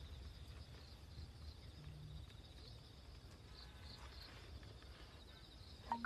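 Faint outdoor ambience: a low rumble under a faint, steady high-pitched insect drone, with a brief sharp click at the very end.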